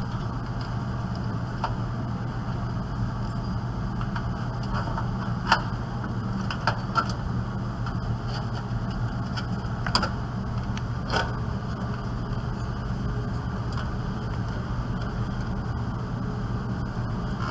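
A handful of light clicks and knocks as a video card is handled and fitted back into a desktop computer's case, over a steady low hum.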